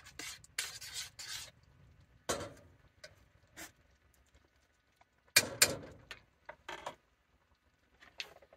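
Cookware clatter: a metal pot set down on a gas stove's grate and a metal spoon put down in a bowl. A scatter of knocks and clinks, with the two loudest clanks close together a little past the middle.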